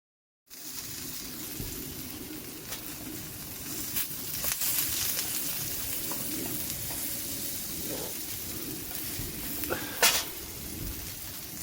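Food sizzling as it fries in a pan, a steady hiss with a few sharp clicks. The loudest click comes about ten seconds in.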